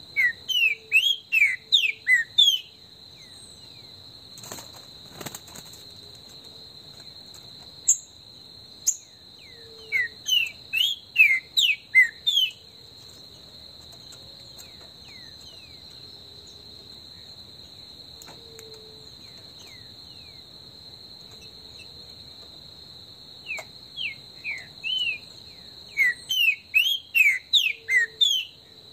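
Green-winged saltator (trinca-ferro) singing three bursts of quick, loud, falling notes: at the start, about ten seconds in, and over the last five seconds. A steady high insect trill runs underneath.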